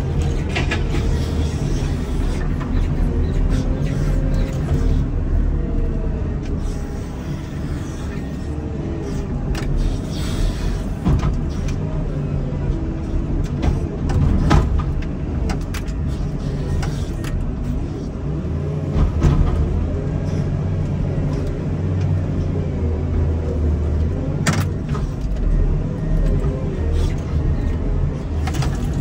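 Komatsu wheel loader's diesel engine running under load while pushing snow, with a steady low drone whose pitch rises and falls as it works. A few sharp knocks come through, the clearest about halfway and near the end.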